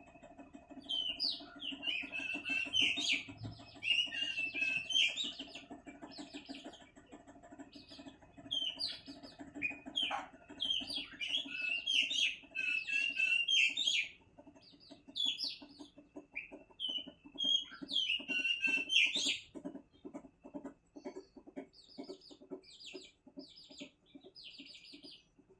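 A bird chirping and chattering in quick high-pitched bursts, then giving a run of short, evenly spaced repeated notes toward the end, over a steady low hum.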